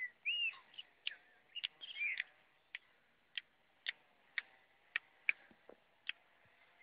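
Faint birdsong: short warbling chirps near the start and again about two seconds in, over a run of short, high ticks coming about twice a second.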